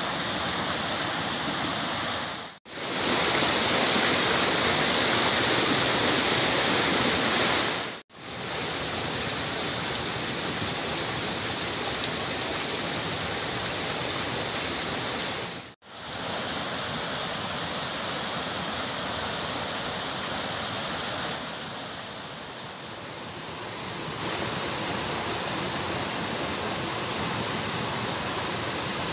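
Rushing water of river rapids by a waterfall: a steady, full rush of noise. It cuts out abruptly three times, each time for only a moment, and turns quieter for a few seconds past the two-thirds point.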